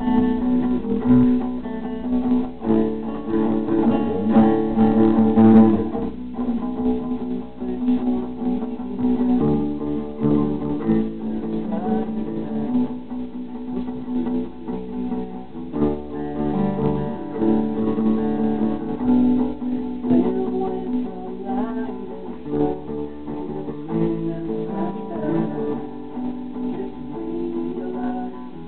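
Acoustic rock played live on an acoustic guitar, strummed, together with an acoustic bass guitar.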